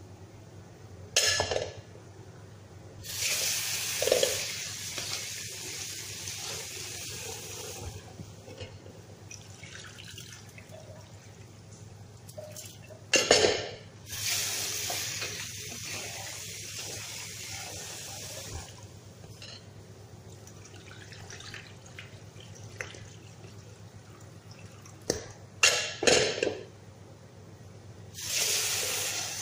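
Kitchen tap water running into an aluminium pot of rice in a stainless steel sink in three spells, as the rice is washed and the cloudy water tipped out. Between the spells come a few loud knocks as the pot is handled against the sink.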